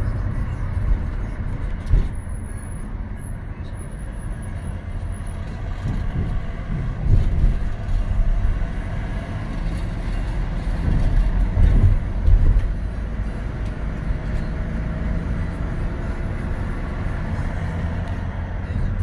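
A car driving in city traffic: a steady low engine and road rumble, with louder bumps about two seconds in, around seven seconds, and again around eleven to twelve seconds.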